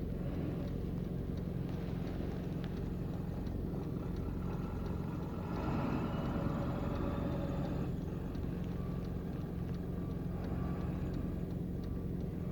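Vehicle engine running steadily in a low hum, with a louder rushing sound swelling and fading about six to eight seconds in.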